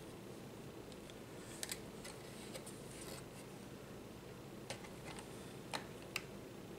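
Small hard-plastic clicks and taps as RC car kit parts are handled and pushed into a Tamiya TT02 plastic chassis: a handful of short, sharp clicks, including a close pair about a second and a half in and another sharp one near the end, over a faint steady background hum.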